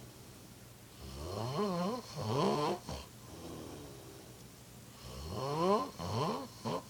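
A person snoring loudly in deep sleep. There are two long snores about four seconds apart, each rising in pitch and breaking into a couple of shorter rattles at its end, with quieter breathing between.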